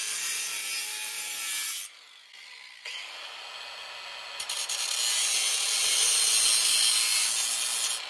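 Cordless angle grinder with a cutoff wheel cutting through a metal door-bottom extrusion in two passes: a short cut that stops about two seconds in, then a second, louder cut that starts about a second later and cuts off sharply at the end.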